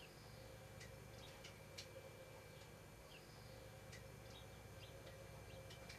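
Near silence: room tone with a faint hum and scattered faint high ticks and small chirps.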